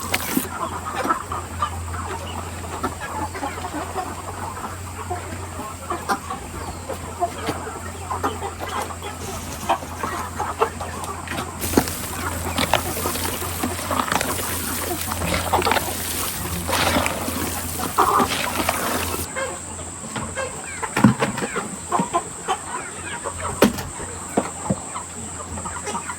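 A flock of chickens clucking and calling, many short irregular calls overlapping, over a steady low hum that fades about two-thirds of the way through.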